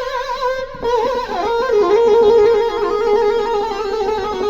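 Roland VR-09 keyboard playing a reedy synth lead tone. A held note wavers and bends in pitch under the pitch bend, dips down about a second in, then moves on through a run of stepped notes.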